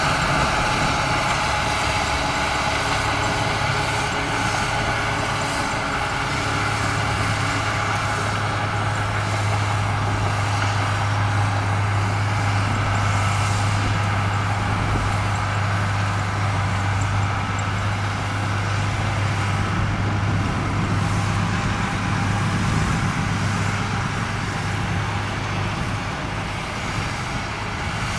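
Komatsu bulldozer's diesel engine running steadily under work as it pushes sand, with a strong low hum.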